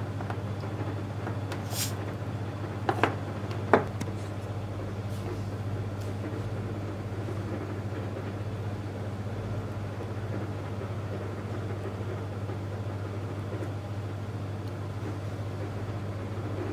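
A few sharp snaps from a homemade 12 V MOSFET battery spot welder firing its probes into a thin metal strip, between about two and four seconds in, with the last one the loudest. A steady low hum lies under them.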